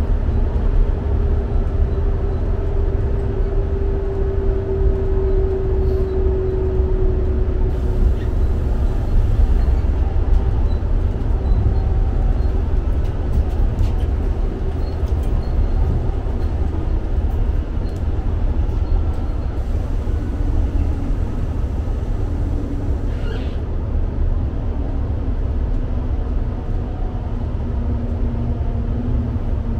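Inside the carriage of a diesel multiple unit running at speed: a steady low rumble of wheels on rail and the underfloor engine. A faint hum fades out in the first several seconds, and there is a brief high squeak late on.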